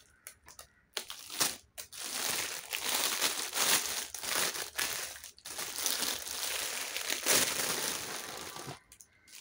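Thin clear plastic packaging bag crinkling and rustling as it is pulled open and off a new faux-leather handbag, a few sharp crackles first, then continuous crinkling from about a second in that stops shortly before the end.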